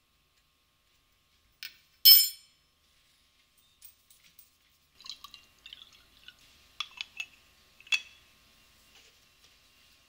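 A metal spoon strikes the moka pot's metal filter basket once, a sharp ringing clink about two seconds in. From about five seconds, water is poured from a glass measuring jug into the moka pot's base, a faint trickle with a few light clinks.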